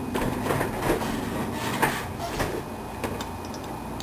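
Handling noise from a Medeco IC core cylinder and its key: irregular metallic clicks, taps and scraping as the parts are worked by hand, the key or plug sticking.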